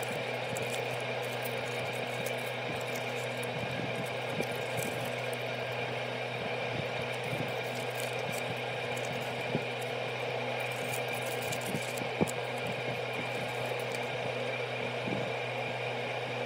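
A steady machine hum with several fixed tones, unchanged throughout. A few soft ticks and rustles of paper card being handled and folded break through it now and then.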